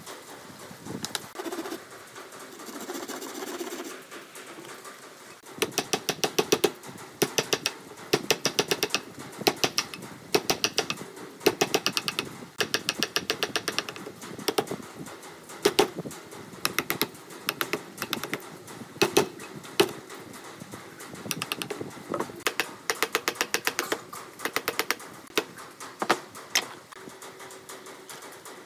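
Wooden mallet tapping a chisel in quick runs of light, sharp strikes, starting about five seconds in, as it cuts a shallow mortise for a brass butt hinge into a pine frame.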